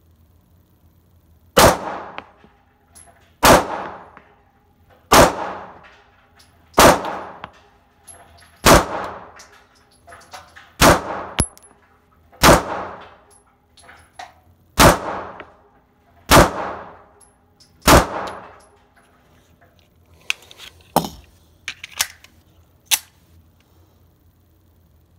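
Sig Sauer P365 9mm pistol fired in slow, steady succession: about ten shots, one every one and a half to two seconds, each ringing on in an indoor range. A few fainter, sharper cracks follow near the end.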